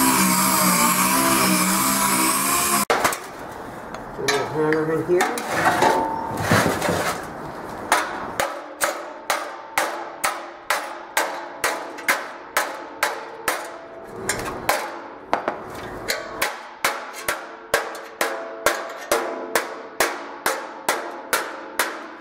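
Hammer blows on the steel body panel of a 1959 Vespa scooter, beating out dents from the inside, a regular run of sharp metallic strikes about two a second from about eight seconds in. It opens with about three seconds of a louder steady sound that cuts off suddenly.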